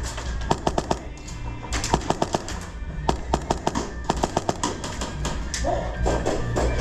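Airsoft guns firing in several short rapid bursts of sharp clicks, over rock music playing on speakers.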